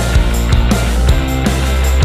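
Upbeat intro music with a steady drum beat over held bass notes.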